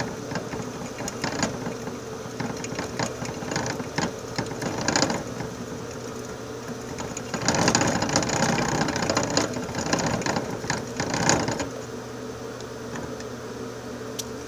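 Plastic exercise wheel clattering and rattling as a pet mouse runs in it, a busy run of small clicks and knocks that gets louder for a few seconds past the middle.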